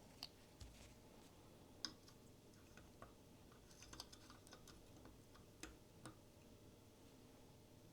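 Faint, scattered light clicks and taps of small plastic art-toy figures being set down and arranged on a display stand, the sharpest about two seconds in.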